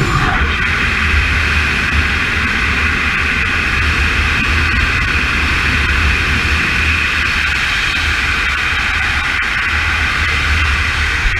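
Radio-controlled model airplane's motor and propeller running steadily, a constant buzzing whine, with heavy wind rumble on the microphone underneath.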